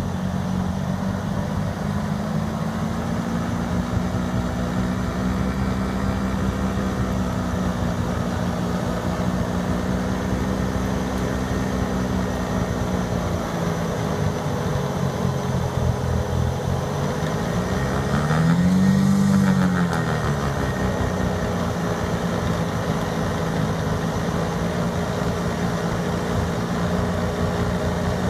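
Diesel engine of a New Holland skid steer working an FFC snowblower attachment, running at a steady speed. About two-thirds of the way through its pitch dips, then it revs up louder for a second or two and settles back.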